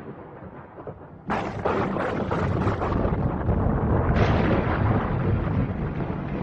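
A sudden loud boom about a second in, followed by continuous rumbling, with a second surge near four seconds in.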